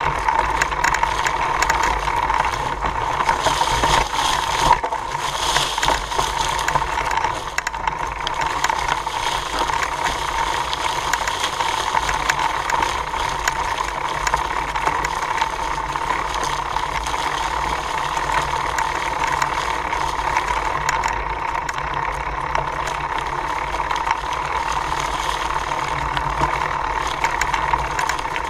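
Mountain bike rolling over a dry, leaf-covered dirt trail while pedalled: steady tyre noise through the leaves with chain and frame rattle, picked up by a camera mounted on the bike frame. A constant hum-like tone sits under the noise throughout.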